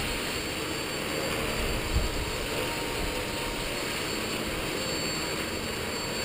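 Skyartec Wasp V3 electric radio-controlled helicopter in flight, its rotor and motor giving a steady whirring whine.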